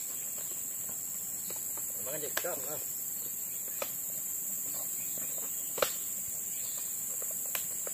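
Steady, high-pitched chorus of forest insects, unbroken throughout. A few sharp clicks or knocks break through it, the loudest about six seconds in.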